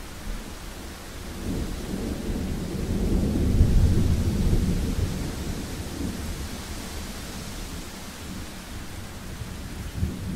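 A long rumble of thunder swells over a few seconds and rolls away, over steady rain.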